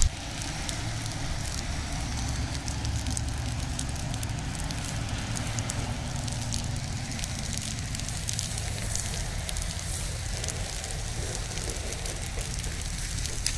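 Burning stubble crackling in many sharp ticks over a steady low rumble.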